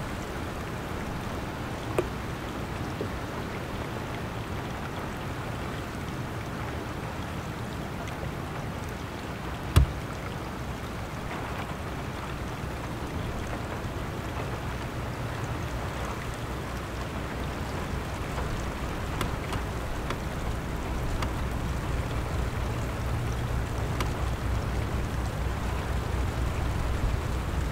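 Distant 3TE10M diesel locomotive's two-stroke opposed-piston engines running as it hauls a freight train, a low pulsing drone that grows louder over the second half, under a steady noisy hiss. Two sharp clicks, one near the start and a louder one about ten seconds in.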